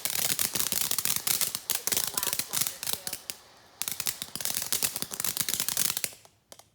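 Large consumer firework going off in a dense, rapid crackle of sharp pops, with a brief lull a little after three seconds in; it stops about six seconds in after a few last pops.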